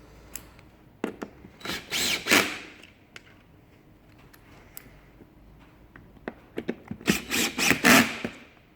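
Power drill driving the screws that hold a task chair's armrest, in two short bursts, one about two seconds in and a longer one near the end, with small clicks and knocks of handling between.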